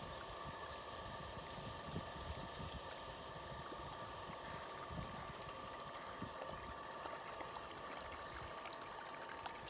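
Wind rumbling in uneven gusts on the microphone over a steady hiss, with a few faint steady high tones and scattered small ticks.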